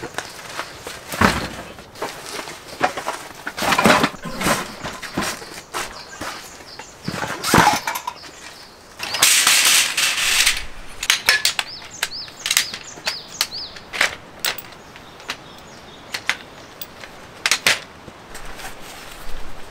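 Camping gear being handled by hand: knocks and clatters of folding metal frames, a burst of nylon fabric rustling about nine seconds in as a packed bundle is pulled open, then scattered clicks as a folding camp chair's poles are opened and its fabric seat fitted.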